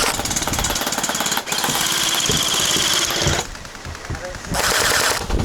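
Gel blaster firing on full auto: the fast mechanical chatter of its electric gearbox cycling, one long burst of about three seconds, a pause, then another burst near the end.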